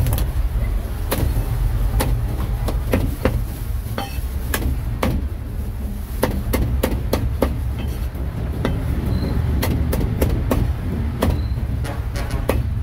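Cleaver chopping grilled meat on a wooden block: irregular sharp strikes, a few a second, some in quick pairs, over a steady low rumble.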